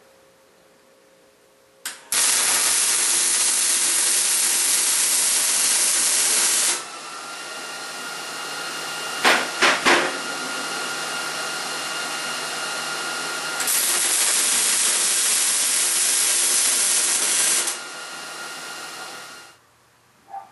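Arc welding on steel tubing: two runs of loud, steady hiss, about five and four seconds long. A quieter steady sound fills the gap between them and the time after them, and a few sharp taps come around the middle.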